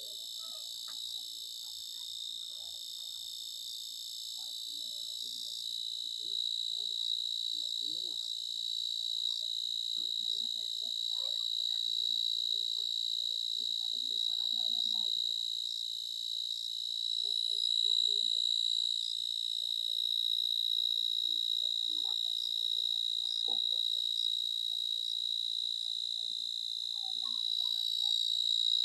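Steady, continuous high-pitched trilling of an insect chorus, with faint scattered sounds underneath.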